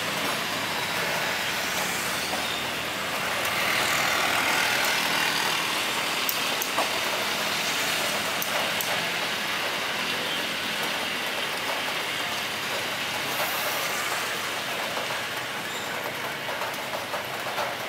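Jet airliner engines running at a distance, with steady rain hiss; the engine noise swells a few seconds in, then settles.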